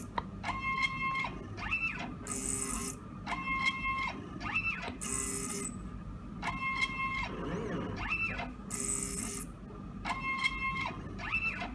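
Stepper motors of a small DIY CNC machine whining through short moves, each whine ramping up in pitch, holding, and ramping down, with a short high hiss about every three seconds as the auger-pump dispenser head cycles from drop to drop.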